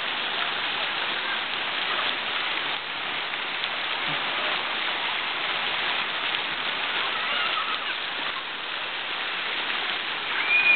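Steady rain-like hiss of water spraying and pouring down onto a shallow splash pool. Faint voices are mixed in, with a brief high shout near the end.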